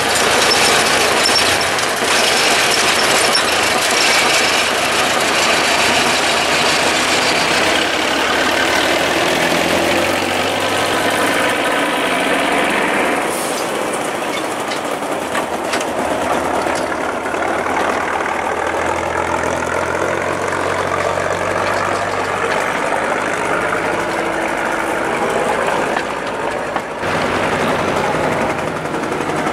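Diesel shunting locomotive (locotracteur) running under load as it hauls a rake of passenger coaches past, with the coaches' wheels rolling over the rails. The sound gets fainter from about halfway as the train moves away.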